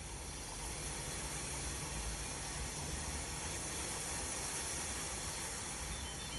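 Steady hissing wash of ocean surf with a low rumble underneath.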